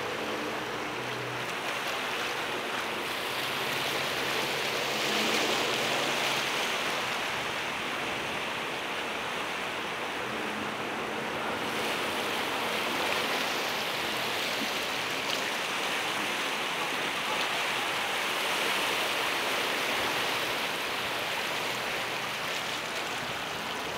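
Steady rushing noise of harbour water, swelling and easing every several seconds. Under it runs a faint low engine hum from the catamaran ferry as it comes in to berth.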